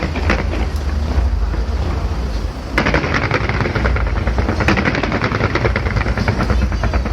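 Fireworks going off in a rapid, continuous series of sharp crackling bangs over a deep low rumble, growing denser and louder about three seconds in.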